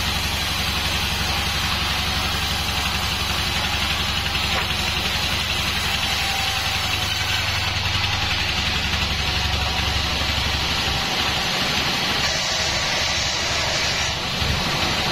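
Band sawmill running steadily: a loud drone from its drive with a broad hiss above it, and the low drone turns uneven about two-thirds of the way through.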